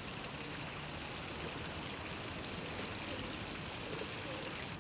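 Water pouring from several wall spouts into a shallow fountain pool, a steady splashing.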